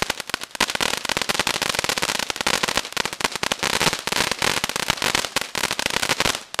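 A 200 g ground fountain firework (FB304 Bubbly Purple Gold) spraying sparks with a hiss and a dense, continuous crackle of popping stars. It stops suddenly near the end.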